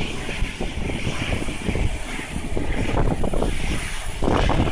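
Wind buffeting the microphone in irregular gusts, a low rumble over a steady hiss, with the strongest gust near the end.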